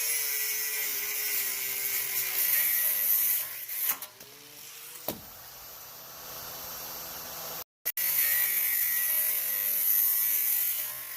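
Angle grinder with a Harbor Freight abrasive cut-off wheel cutting metal: a loud hissing grind over a motor whine that slowly sags in pitch under load. About five seconds in a sharp crack sounds and the noise falls away. Loud grinding resumes near eight seconds.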